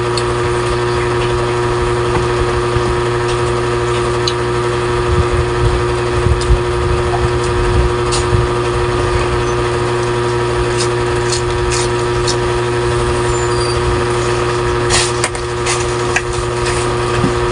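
Steady mechanical hum of a running motor, holding several fixed tones, with a few faint clicks and taps from eating and utensils on top.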